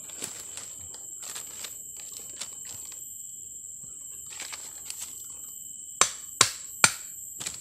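Machete chopping at a wooden stake: three sharp chops in quick succession about six seconds in, then a lighter one near the end, after some faint knocks and rustles of sticks being handled.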